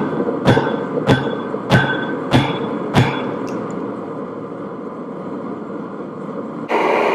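Hammer striking hot steel on an anvil five times at an even pace, each blow ringing briefly, over a steady rush of sound. Near the end a louder sound cuts in suddenly.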